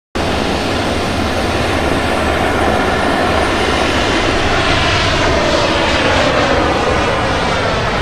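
Carbon-fibre jet wing's four mini jet engines running at high thrust, a loud steady jet noise as it takes off vertically and climbs.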